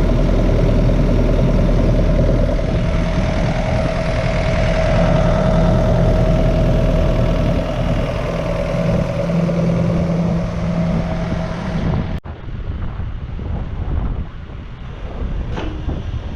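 Yanmar SV100-2A mini excavator's diesel engine running at a steady speed with a steady hum. About twelve seconds in the sound cuts abruptly to a quieter, lower rumble.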